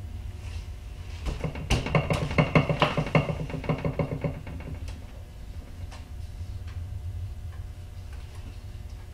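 The handwheel of a Bridgeport milling machine's newly fitted X-axis power feed being cranked by hand as a final check: a fast run of clicks and rattles for about three seconds, then a few scattered ticks, over a low steady hum.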